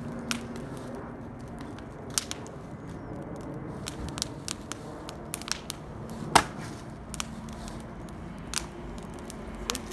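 Axe blows into a fallen tree trunk being split, four sharp chops spread out, the loudest about six seconds in. Between them come small faint crackles.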